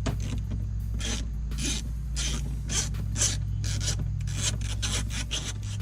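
A ratchet and 7mm socket backing out a B-pillar trim bolt: short bursts of ratchet clicking, about four a second, with each back-and-forth stroke of the handle.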